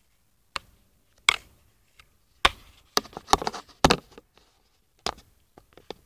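Handling noise on a phone camera's microphone: an irregular string of sharp clicks and knocks with short scrapes between them, busiest between about one and four seconds in.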